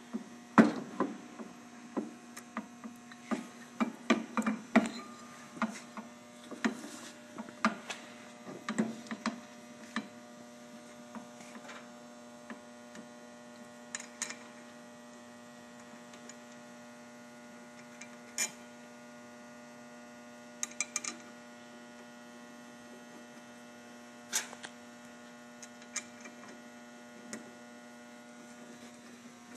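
Hot melt roll coater humming steadily with a buzzy, pitched electrical tone, overlaid by clicks and clinks of metal parts being handled, many in the first ten seconds and only a few scattered ones after that.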